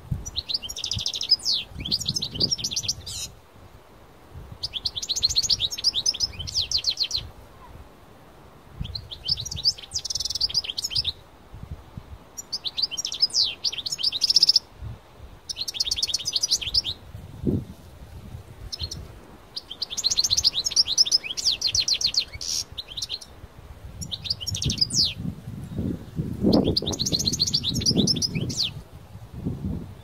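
European goldfinch of the North African parva subspecies singing: a series of song phrases of rapid high notes, each one to three seconds long, with short pauses between them.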